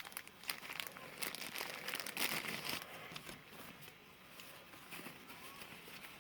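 Crinkling and rustling of packaging being handled and unwrapped, with many small crackles, busiest in the first three seconds and fainter after that.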